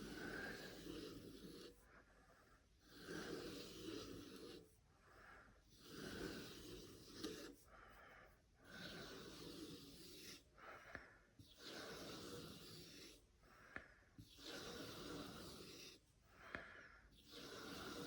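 Pocket knife blade drawn over a leather belt strop in slow, light, even strokes, one soft swish every couple of seconds: honing the edge with no pressure.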